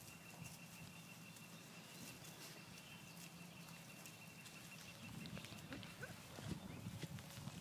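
Quiet outdoor ambience: light rustling and scattered small ticks from month-old puppies moving about on grass, over a faint steady high-pitched tone.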